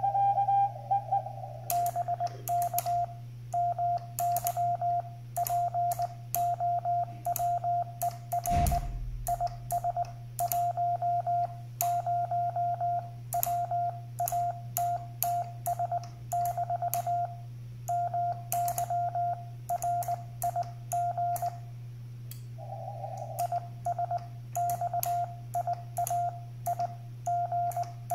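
Morse code (CW) sidetone from a Xiegu X6100 transceiver: a steady single-pitch tone keyed on and off in dots and dashes as the operator transmits, with short gaps between characters and words. Sharp clicks come with many of the tones, over a steady low hum, and there is one low thump about eight seconds in.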